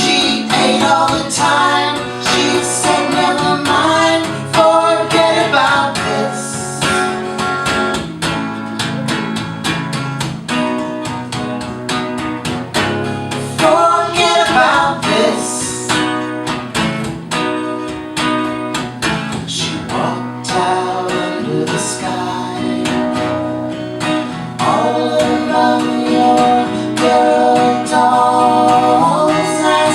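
A live song: acoustic guitar strumming under singing voices.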